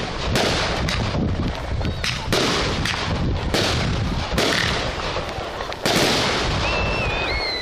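Fireworks display: a rapid run of aerial shell bursts, about two a second, over continuous crackle and rumble.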